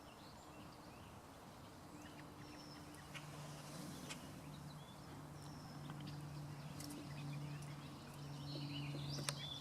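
Faint outdoor ambience: scattered short chirps of small birds and a few soft clicks over a low, steady hum that comes in about two seconds in and grows a little louder toward the end.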